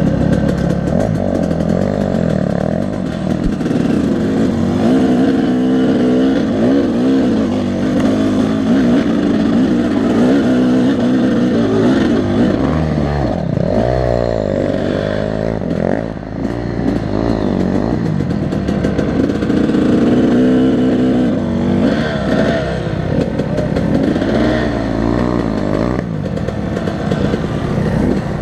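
Two-stroke Yamaha dirt bike engine running under load as it climbs a steep, rough trail, revs rising and falling again and again. There is a brief dip in revs about halfway through.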